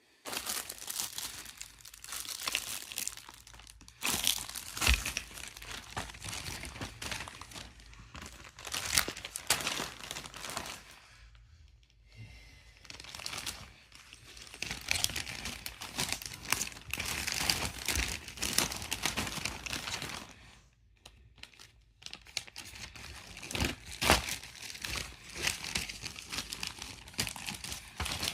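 Plastic storage bags crinkling and crackling as they are handled, with brief pauses about 12 and 21 seconds in.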